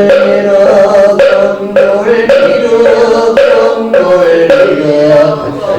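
Korean Buddhist liturgical chanting, sung on long held pitches, with a wooden moktak struck in a steady beat of about two strokes a second.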